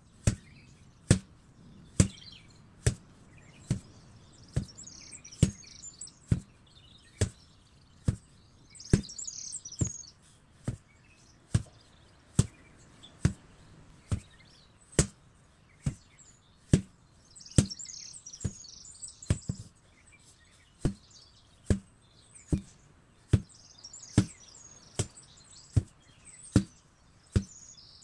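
An 8 kg sledgehammer striking again and again at a steady pace, a little more than one blow a second. Birds chirp in the background in a few short spells.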